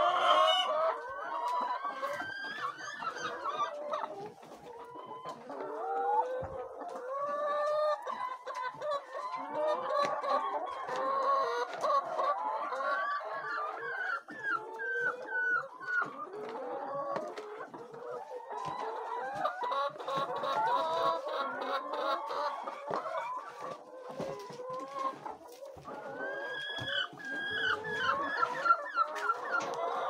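A flock of laying hens clucking, many overlapping calls at once without a break.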